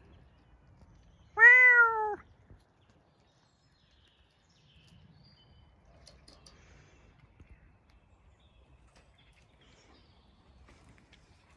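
A cat's single loud meow, rising then falling in pitch and lasting under a second, about a second in. Only faint outdoor sounds follow.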